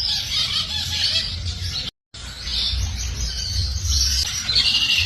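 Parrots chattering and chirping continuously over a low rumble, broken by a brief cut to silence about two seconds in.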